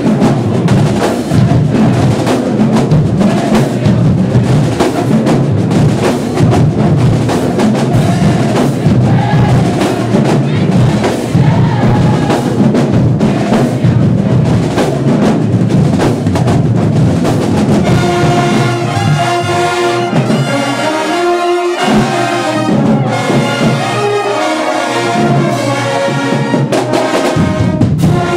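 Marching band with drums and brass, sousaphones among them, playing loudly for the dancers. It opens as a dense, drum-driven groove, and about two-thirds of the way in the brass enters with held chords.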